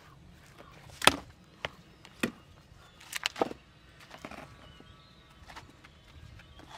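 Several sharp wooden knocks and clunks, the loudest about a second in, from split firewood and a fresh log being handled on a wooden chopping block.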